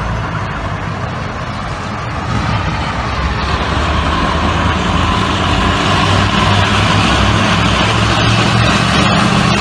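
Heavy military vehicle engines running as armoured vehicles move along the street, a steady low engine sound that grows gradually louder.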